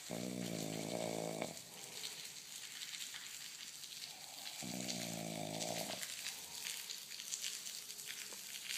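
A man snoring: two long, pitched snores about four and a half seconds apart, over a crackling hiss.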